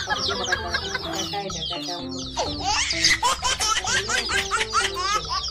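A flock of young chickens peeping without pause: many quick, high chirps, each falling in pitch, overlapping one another.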